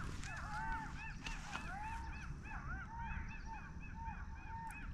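A flock of birds calling on and off without pause, many short rising-and-falling calls overlapping one another, over a low background rumble.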